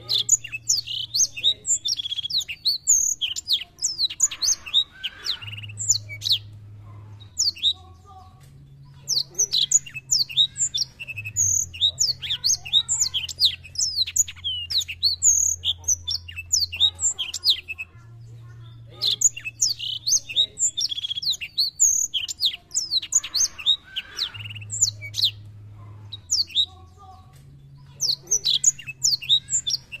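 Black-throated canary singing: long phrases of rapid, high chirps and trills lasting several seconds each, broken by short pauses, with a faint low hum underneath.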